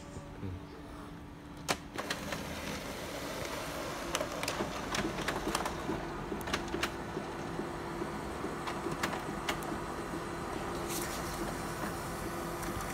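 HP Color LaserJet Pro M479 multifunction printer starting a copy job: a sharp click about two seconds in, then its motors running with a steady hum and a series of clicks and ticks as the loaded document is fed and copied.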